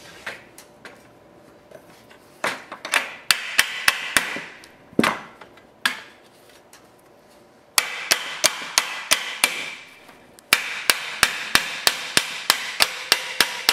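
Hammer tapping a wooden block held against the corner of an aluminium sliding screen door frame, driving the rails onto new corner inserts. A few scattered taps, then two steady runs of taps at about three a second.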